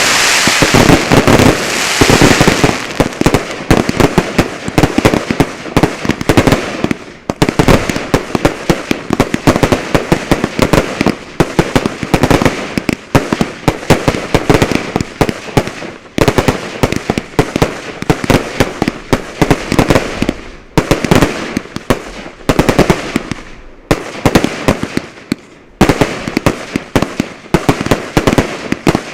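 Fireworks finale: a dense, continuous barrage of bangs from aerial shells and cakes, heaviest in the first couple of seconds, with brief lulls before the next volleys.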